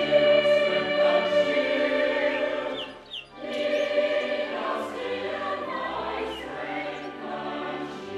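Student chapel choir singing held chords, with a brief break in the sound about three seconds in.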